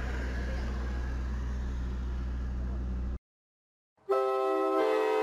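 Steady hum of a car idling close by, which cuts off suddenly about three seconds in. After a moment of silence, a loud multi-note train horn chord starts near the end.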